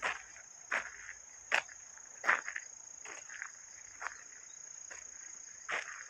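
Footsteps on a sandy dirt trail, a step about every three-quarters of a second, thinning out in the second half, over a steady high-pitched insect chorus.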